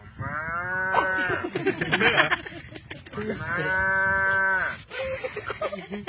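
A man imitating a cow lowing: two long, drawn-out moos, each held for over a second, the first rising in pitch as it begins.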